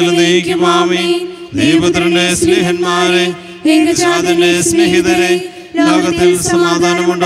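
Malayalam liturgical chant of the Syro-Malabar Qurbana: a voice sings the text on long held notes, in phrases about two seconds long with brief breaks between them.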